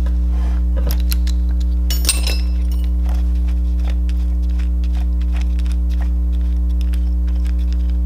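Light clicks and clinks of 3D-printed plastic gears, a nut and washers being handled and pulled off their shafts in a metal gearbox housing. They sound over a loud, steady low hum.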